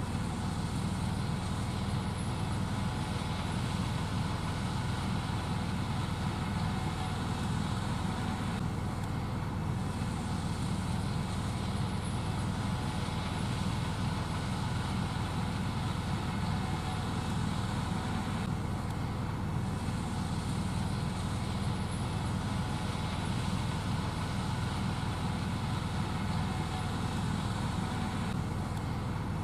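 Gleaner S78 combine harvester running steadily while shelling corn: a constant low engine drone with steady higher machine tones over it.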